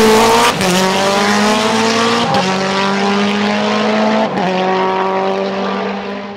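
Race car engine pulling hard under acceleration, its pitch climbing steadily between three quick breaks, like upshifts, about half a second, two seconds and four seconds in. The sound fades out near the end.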